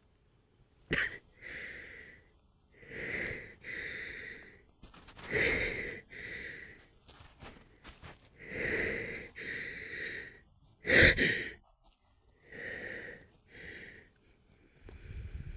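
A woman's hitching, wheezy breaths as she holds back a sneeze: a string of short gasping breaths, many in pairs, with a sharper, louder catch about eleven seconds in.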